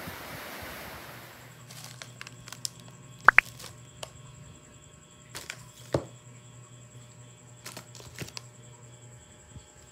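Small cans and a cracker pack being handled and set down on a plastic table cover: scattered light taps and knocks, with a sharp double click about three seconds in and a duller knock about six seconds in.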